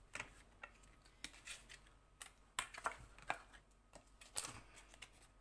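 Cardstock and patterned paper being handled and set down on a cutting mat: a string of short, scattered rustles and light taps.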